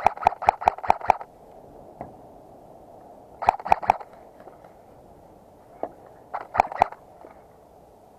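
Airsoft guns firing in quick strings of sharp cracks: about eight shots in the first second, four more after about three and a half seconds, and a few near the end.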